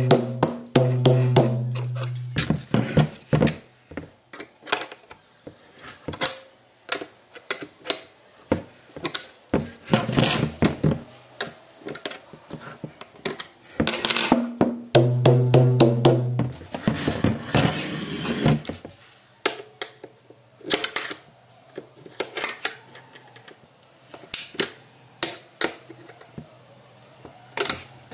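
Dholak played with the hands: sharp slaps and taps in loose, irregular runs. A deep bass note from the low head rings on for a second or two at the start and again about halfway through.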